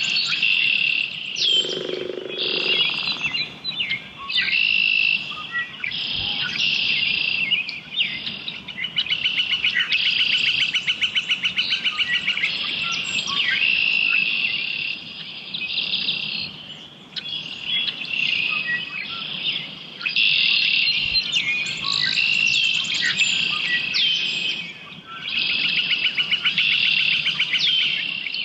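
Dawn chorus of songbirds: several birds singing overlapping, repeated song phrases, some of them fast trills, with hardly a gap.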